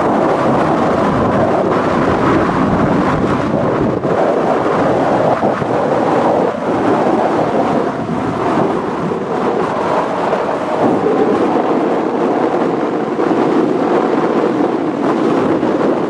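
Storm surf breaking on a sandy beach, a loud continuous rush of waves, with wind buffeting the microphone.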